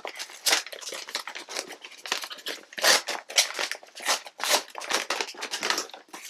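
Paper bag crinkling and rustling in quick, irregular bursts as it is opened and the ingredients inside are handled.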